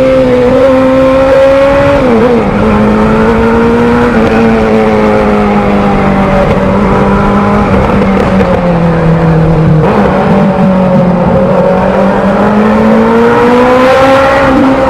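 Motorcycle engine running at speed, its note dropping sharply about two seconds in, easing lower until about ten seconds in, then rising steadily again toward the end.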